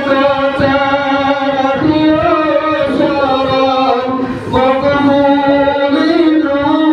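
A man's voice singing a Bengali farewell gojol, an Islamic devotional song, into a microphone in long held notes.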